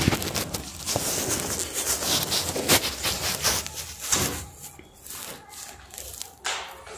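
Handling noise from a concealed camera phone being moved about: rustling and rubbing on the microphone with sharp knocks and bumps. It is loudest through the first four seconds, then quieter.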